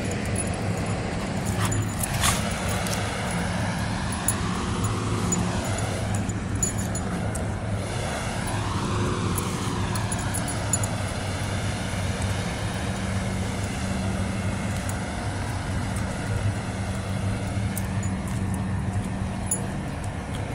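A steady low engine hum with traffic-like noise around it, swelling and easing slowly, and a single sharp knock about two seconds in.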